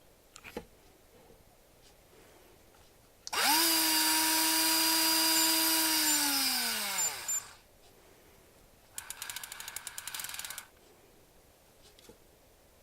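Shimano Dendou-maru 3000SP electric fishing reel's motor spinning up, winding steadily for about three seconds, then winding down in pitch and stopping. A short burst of rapid clicking from the reel follows a little later.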